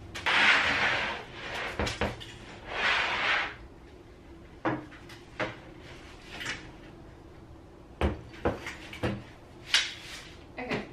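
Plastic packaging crinkling as it is gathered up, twice in the first few seconds, then a series of knocks and clunks as a flat-pack table with metal legs is flipped upright and set down on a hard floor.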